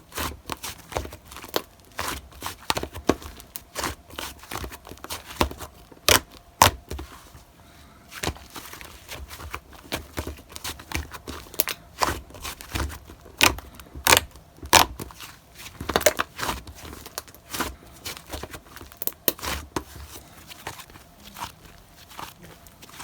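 Slime being squeezed and worked by hand, giving irregular sharp clicks and crackles, a few a second, with short pauses between bursts.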